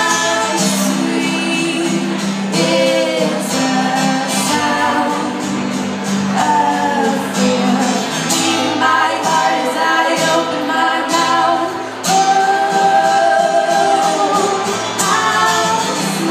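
Music: two women singing an original song, with long held notes.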